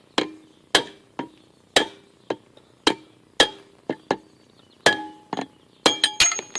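Hammer blows on a lathe-turned metal drift, roughly two a second and coming faster near the end, each with a short metallic ring. The drift is trying to drive out a tube that is stuck fast in the axle's rubber bushing.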